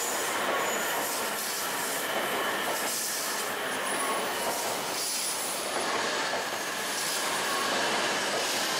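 E5 Series Shinkansen bullet train running slowly into the platform as it arrives: a steady rush of wheel, rail and running-gear noise, with faint high squealing tones that come and go.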